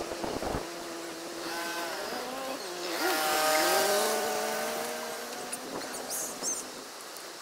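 A motor vehicle's engine passing by: its pitch bends and glides as it swells to a peak about three to four seconds in, then fades. Wind buffets the microphone at the very start.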